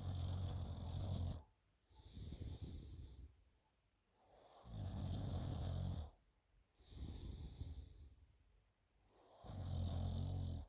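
A sleeping person snoring: three deep snores about four and a half seconds apart, each followed by a softer hissing breath.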